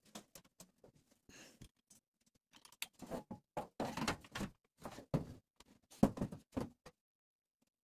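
Thin tinplate cabinet panels cut from a mustard-oil tin being handled, giving a run of taps, clatters and knocks that grows busier and louder about three seconds in.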